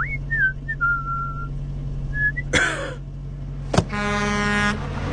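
Cartoon sound effects: a person whistles a few notes over the steady low hum of an idling car engine. About two and a half seconds in comes a short noisy burst, then a sharp thump near four seconds as the figure falls, followed by a brief held tone.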